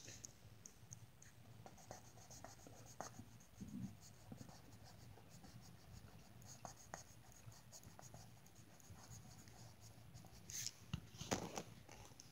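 Green felt-tip marker stroking back and forth on paper, colouring in with a faint, rapid scratching. A few louder knocks and rustles come near the end.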